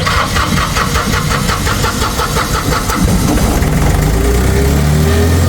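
Trailer's auxiliary diesel engine cranking with a fast, even pulse, then catching about three seconds in and running steadily, its pitch rising slightly near the end. It starts now that its fuel shut-off solenoid gets power again.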